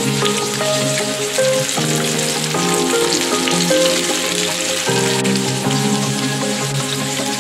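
Batter-coated fish pieces sizzling steadily as they fry in hot oil in a pan. Background music of sustained chords that change about every second plays over the sizzle.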